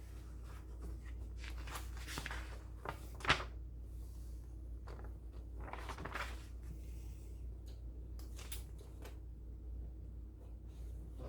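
Pen scratching on paper in short strokes, with one sharp click about three seconds in, over a low steady hum.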